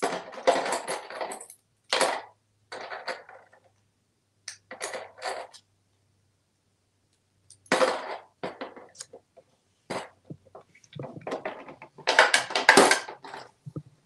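African grey parrot rummaging with its beak in a red plastic play-money tray, clattering toy coins and paper bills against the plastic in a series of short bursts, loudest near the end.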